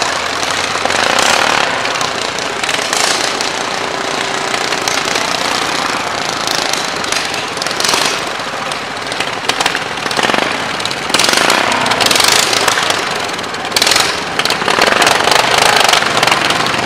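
Engines of a Jeep and small riding garden tractors running as they approach along the road, heard as a rough, rattling mechanical noise. It gets louder in surges about eleven and fourteen seconds in as the vehicles near.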